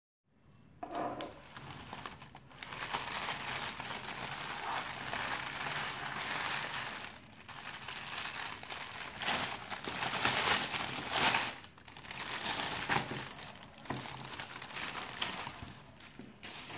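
Thin plastic carrier bag crinkling and rustling as hands pull it open and unwrap it, the loudest crackling about two-thirds of the way through, with short lulls in between.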